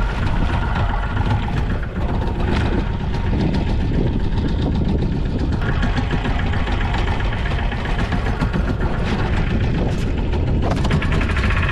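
Boat engine idling steadily under the deck with a fine, even pulse.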